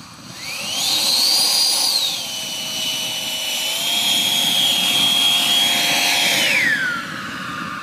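All-metal 120 mm electric ducted fan (880 kV motor) in a model F-18 jet spooling up with a high rising whine, holding, dipping slightly and rising again as the throttle is worked. Near the end it spools down quickly to a lower steady whine at low throttle.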